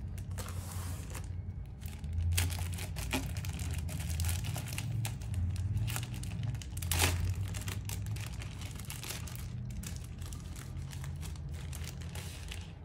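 Crinkly packaging wrap being pulled and unfolded by hand: irregular crackling and rustling, loudest about seven seconds in, over a steady low hum.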